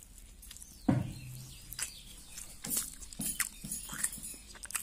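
A person chewing close to the microphone, with scattered short wet clicks and smacks of the mouth. About a second in there is one louder knock with a brief low hum.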